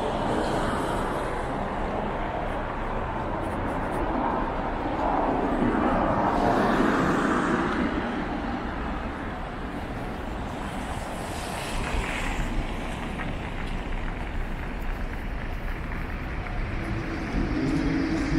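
Road traffic on a busy city avenue: cars passing steadily, one swelling louder about six to seven seconds in.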